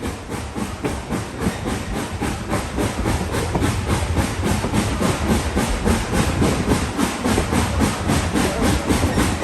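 Tweetsie No. 12, a 4-6-0 steam locomotive, working under way: a fast, steady beat of exhaust chuffs, about five a second, over a steady steam hiss.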